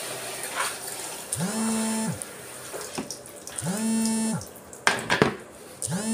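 Water spraying from a handheld shower head onto a dog. A low, pitched drone of unclear origin swells up, holds and fades about every two seconds, and a few sharp clicks come about five seconds in.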